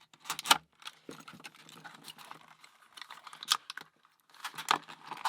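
Padlock packaging being pried and torn open with an improvised tool: a run of sharp clicks and crackles with scraping in between, loudest about half a second in and again near the end.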